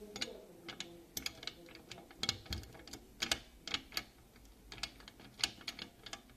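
Wood-chip bedding clicking and shifting irregularly as a corn snake crawls through it: a dozen or so sharp, separate clicks and light rattles at uneven intervals.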